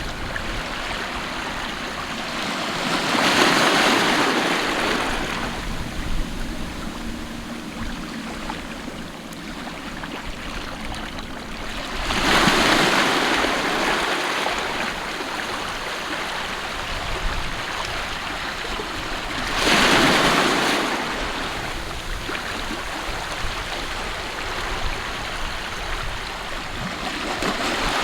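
Sea waves breaking about every eight seconds, each swelling up and washing away, with a steady rush of water between them.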